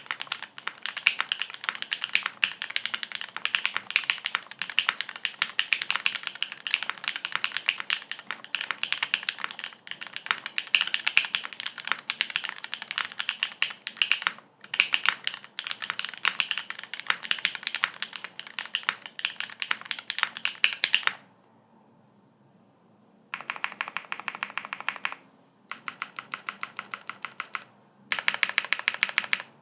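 Keycult No. 2/65 mechanical keyboard being typed on fast, its long-pole linear switches (Cherry MX Black housings with NK Cream stems) on an aluminum plate under GMK keycaps. Steady rapid typing breaks off for about two seconds about two-thirds of the way through, then resumes in short bursts with brief pauses.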